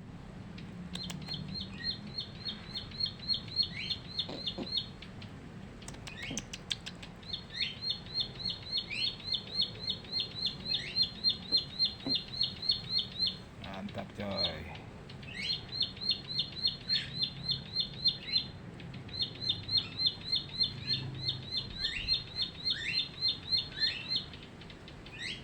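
A caged bar-winged prinia (ciblek) singing: long bouts of rapid, evenly spaced high chipping notes, several a second, broken by short pauses and an occasional lower down-slurred note. It is a wild-caught bird already singing three weeks into captivity.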